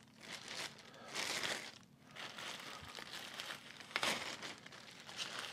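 Packaging wrap and tape crinkling and tearing as taped-up golf wedges are unwrapped, in a few irregular bursts of rustling, the strongest about a second in and about four seconds in.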